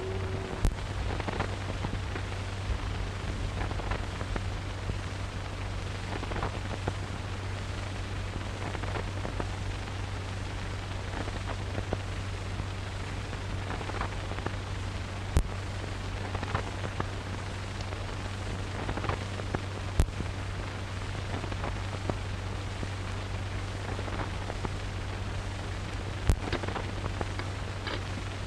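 Surface noise of an old optical film soundtrack: a steady low hum under hiss and crackle, broken by a few sharp pops. The tail of a gong stroke dies away at the very start.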